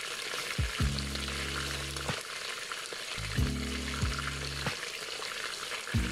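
Oxtail sizzling in hot oil as it browns in the pot of an electric pressure cooker, a steady crackling hiss. A low steady hum comes and goes three times over it.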